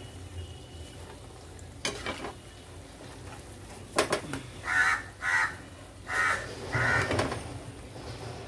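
Oil sizzling around shakarpara frying in a kadai while the pieces are scooped out with a metal slotted spoon, which clicks sharply against the pan about two and four seconds in. A bird calls four times in quick succession past the middle.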